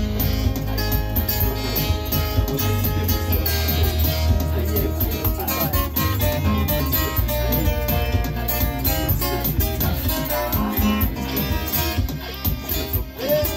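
Acoustic guitar and electronic keyboard playing a piece together over a steady beat with heavy bass.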